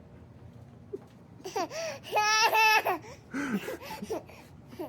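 Baby babbling, then breaking into a loud, high-pitched two-part squealing laugh about two seconds in, followed by a few softer vocal sounds.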